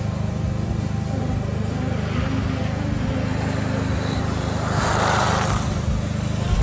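Kia Cerato driving through an autoslalom course with its engine running, and a burst of tyre noise about five seconds in.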